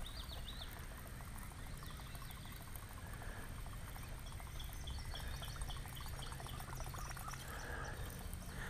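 A buzz bait being reeled across the water's surface: a faint, steady churning gurgle with fast, light clicking.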